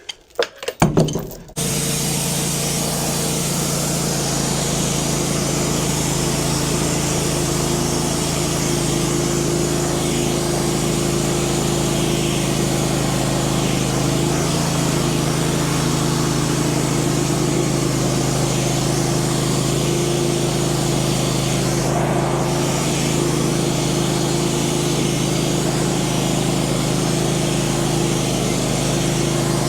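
Large two-stroke chainsaw on an Alaskan chainsaw mill running at steady high throttle, ripping lengthwise through a big white pine log. A few short bursts come first, then the engine settles into an unbroken, even note about a second and a half in.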